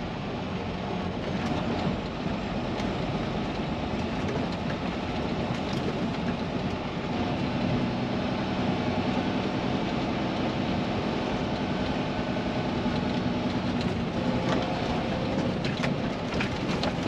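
Inside a semi truck's cab at low speed: the diesel engine runs with a steady low hum under road noise, with scattered clicks and rattles as the truck rolls over rough gravel, more of them near the end.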